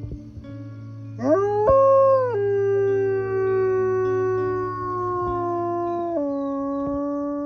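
A white wolf howling: one long howl that sweeps up steeply about a second in, then holds a slowly falling note. The pitch steps down once about six seconds in.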